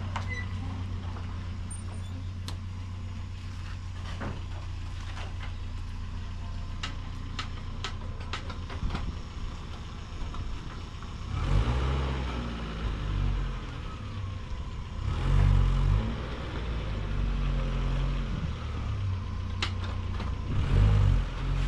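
An engine running with a steady low hum, surging louder three times in the second half, with scattered sharp knocks.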